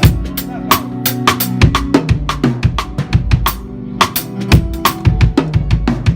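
Drum kit playing a busy beat of kick, snare and cymbal hits over held bass and pitched notes: band music at a sound check.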